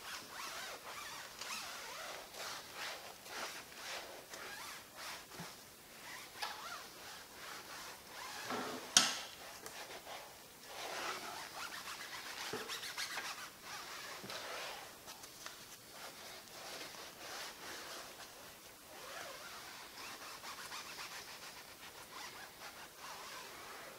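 Applicator pad scrubbing tire dressing into a car tire's rubber sidewall in quick, uneven rubbing strokes. A single sharp knock about nine seconds in.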